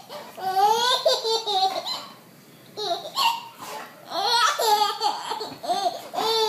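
A baby laughing hard in several long bouts, with a short break a little after two seconds in.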